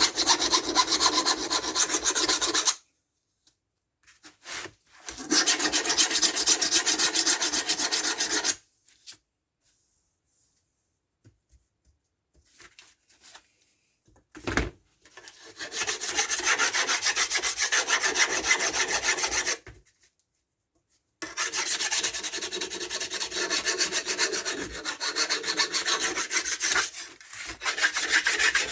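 A hand file rasping along the edges of a Stihl MS170's laminated steel guide bar to take off the burr built up there, in four bouts of quick strokes with short pauses between.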